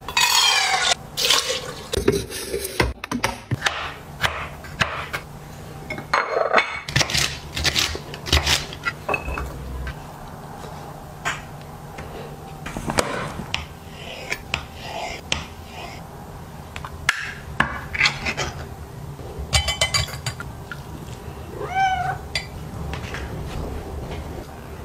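Kitchen preparation sounds: water and rice pouring into a rice-cooker pot, then a run of short taps and clinks of a knife and dishes on the counter. A cat meows once near the end.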